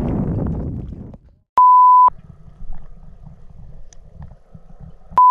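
Water splashing and churning for about a second. Then two loud, flat bleep tones of about half a second each, about three and a half seconds apart, with a low muffled rumble between them.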